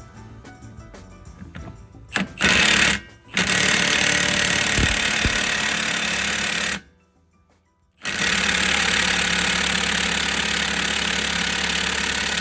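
A powerful impact driver hammering on a seized Mini axle nut: a short burst about two seconds in, a long run of hammering, a break of about a second, then hammering again to the end. The nut is not coming loose.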